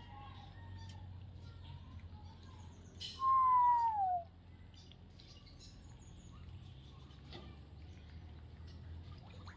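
A single clear bird call: one whistle about a second long, falling in pitch, about three seconds in, over faint steady background noise.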